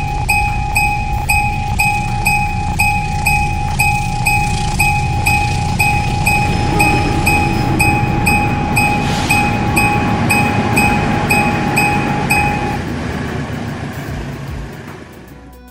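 Railway level-crossing warning bell dinging about three times a second over the rumble of a passing train. The bell stops about thirteen seconds in, and the train rumble then fades away.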